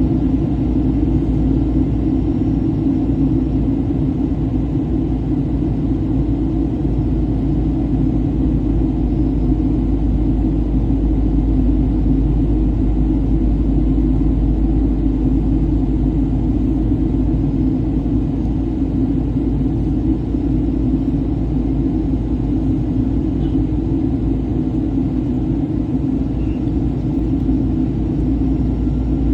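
Airliner cabin noise in flight: a steady low rumble of engines and rushing air.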